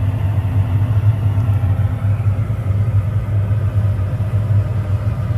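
John Deere combine engine running with a steady low rumble.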